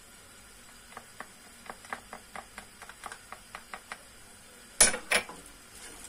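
A plastic spoon stirring minced meat, tomatoes and garlic in a cooking pot, knocking lightly against the pot about three times a second, then two louder knocks about five seconds in.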